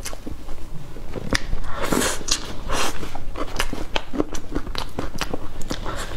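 Close-miked eating of soft cream cake: wet chewing and lip smacking with many quick mouth clicks, and a metal spoon scraping through the cake on its cardboard board.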